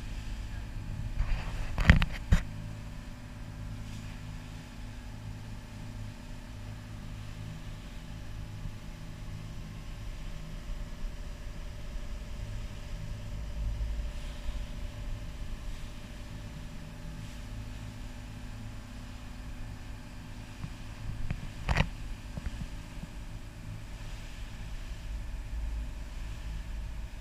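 A boat's engine running steadily under way, a low even drone. Two sharp knocks stand out, one about two seconds in and one near the end.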